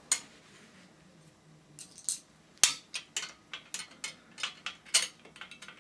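Metal parts of a rifle rest clinking and clicking as a leg piece is fitted and its bolt worked with a hand tool: a string of irregular sharp clinks, the loudest about two and a half seconds in.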